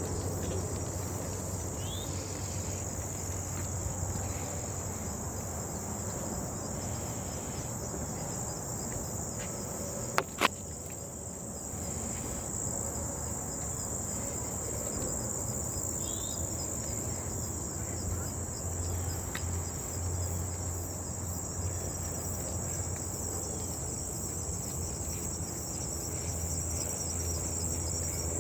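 Steady high-pitched chorus of singing insects, a continuous pulsing trill. Two sharp clicks come close together about ten seconds in.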